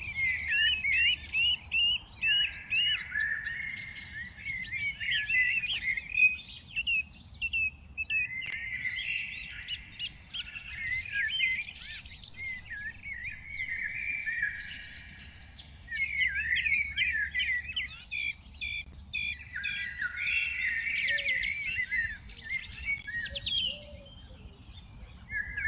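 A flock of small songbirds chirping and twittering together in a dense, overlapping chorus of quick, high notes that never pauses.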